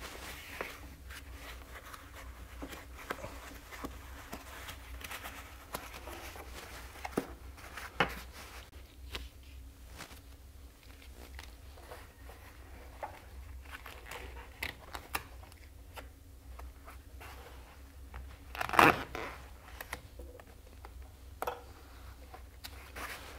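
Tape being pulled off the roll and wrapped around foam pipe insulation, with scattered rustling and crinkling handling noises and one louder brief burst of noise about three-quarters of the way through.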